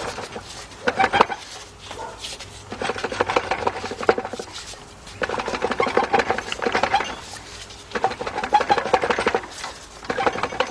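Torque converter being turned and pushed by hand onto the transmission, scraping and clicking against the input shaft and pump as it works its way in to seat in the pump drive. It comes in bursts of a second or two, about five times, with short pauses between.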